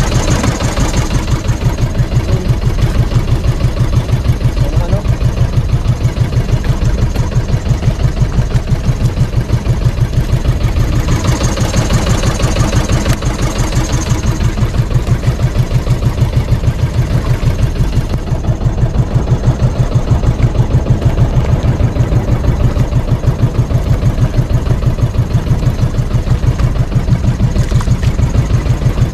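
Outrigger fishing boat's engine running steadily under way, with an even pulsing beat. Water hiss along the hull swells briefly about twelve seconds in.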